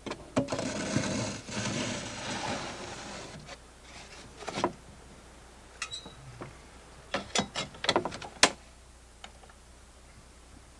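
Fiber cement siding plank scraping as it is slid into place for about three seconds, followed by scattered sharp knocks and taps as it is fitted, a quick cluster of them with the loudest knock near the end.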